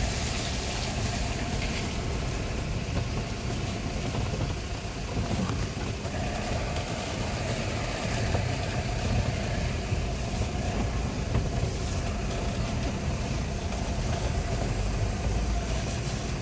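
Car driving over a rough, muddy dirt road, heard from inside the cabin: a steady engine and tyre rumble.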